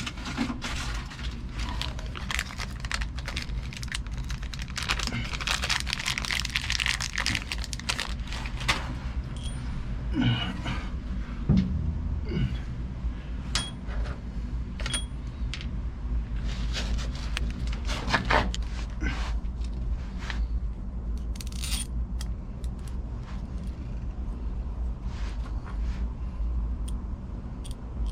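Small metal parts clinking and scraping as bolts and washers are handled and fitted, in irregular clicks and rattles that are busiest in the first third. A steady low hum runs underneath.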